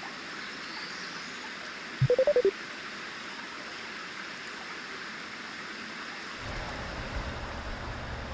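A steady rushing hiss of running water or wind. About two seconds in comes a quick run of five or six short, loud beeps, and a low rumble comes in near the end.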